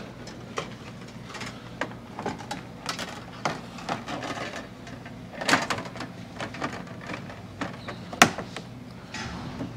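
Scattered light clicks and knocks of handling, with one sharper click about eight seconds in, over a steady low hum.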